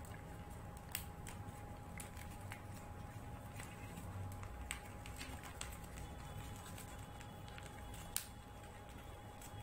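Faint crinkling and rustling of folded paper being handled, with a few sharp crisp clicks as flaps are creased and tucked into an origami ninja star, the sharpest about eight seconds in. A faint steady hum lies underneath.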